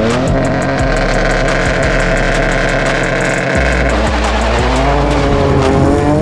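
A car engine revving hard, rising in pitch as it accelerates about a second in and again near the end, with background music with a steady beat underneath.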